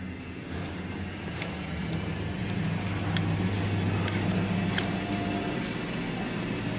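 Footsteps climbing tiled stairs, a few light taps, over a low steady hum that grows a little louder through the middle.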